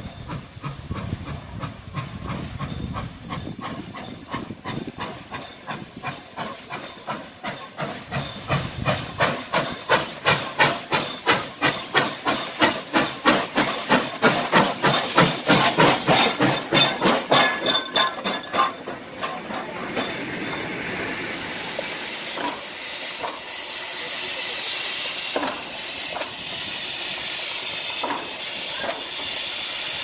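Steam locomotive working slowly past at close range, its exhaust chuffing in even beats about two to three a second that grow louder and then fade away. From about two-thirds of the way through, a steady loud hiss of escaping steam takes over as the engine stands.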